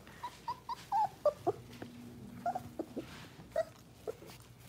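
Golden retriever puppies about four and a half weeks old whimpering and yipping in short high-pitched calls. A quick run of them comes in the first second and a half, the loudest about a second in, some sliding down in pitch, then a few more scattered.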